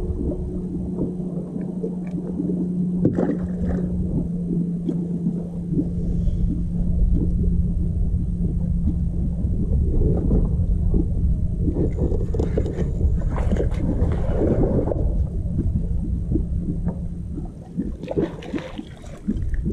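Bow-mounted electric trolling motor humming steadily, cutting off near the end, over a low rumble.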